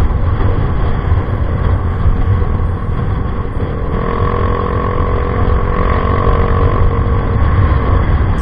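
Yamaha Mio i 125 scooter with an Apido V3 aftermarket exhaust pipe running on the move, a steady exhaust and engine note. About halfway through, a higher steady whine joins in and holds until shortly before the end.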